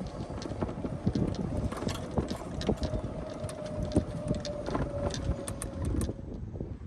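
Golf cart driving along: a steady rumble with many small knocks and rattles and wind on the microphone, and a faint steady whine through the middle. It quiets about six seconds in.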